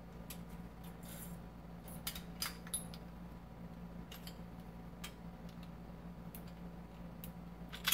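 Small steel parts of a Colt 1911 pistol clicking and clinking under the hands as it is field stripped: recoil spring, guide rod and slide coming off the frame. There are scattered sharp clicks, a few close together about two to three seconds in and the loudest near the end, over a steady low hum.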